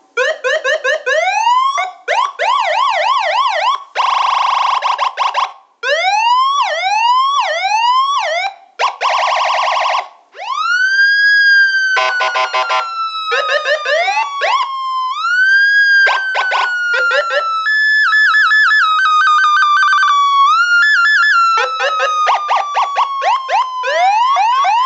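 TOA 10-tone electronic police siren amplifier cycling through its tones: repeated rising whoops, a fast warble, short buzzing horn blasts, long slow wails that rise and then fall, and a stuttering two-tone pulse about three-quarters of the way through.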